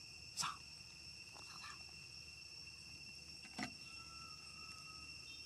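Steady, high-pitched insect chorus, with two short sharp sounds, one about half a second in and one a little past three and a half seconds.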